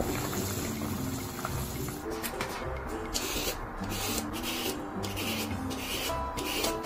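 A vegetable peeler scraping the skin off a fat luffa (sponge gourd) in a quick run of short rasping strokes, starting about two seconds in, over background music.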